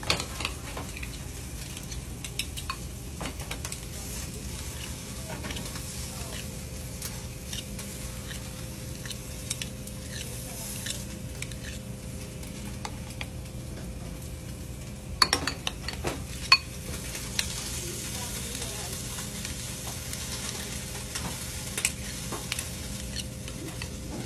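Metal spoons scraping and clinking against a ceramic bowl and plate as mashed potato is shaped into quenelles, over a steady sizzle from a pan of octopus roasting and a faint kitchen hum. A few louder clinks come about fifteen seconds in.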